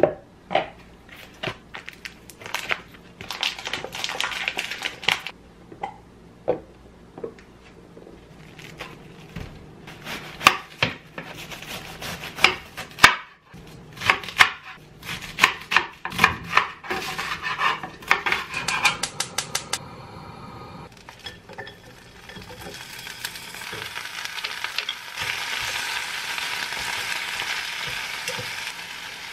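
Chef's knife chopping cabbage on a cutting board: a long run of sharp knocks that quickens into a fast series about two-thirds of the way through. Then cut cabbage sizzling in a hot pot, a steady hiss as it starts to steam.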